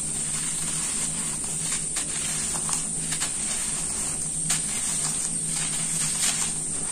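Dry sand-and-cement powder and clumps crushed and crumbled by hand in a steel bowl: a gritty hiss of sifting grains with many small crunches and clicks as lumps break. A steady low hum runs underneath.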